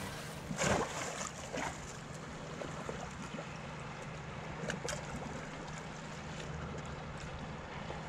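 Wind on the microphone and sea water washing over the rocky shore, a steady outdoor rush with a low hum under it, broken by a few sharp knocks.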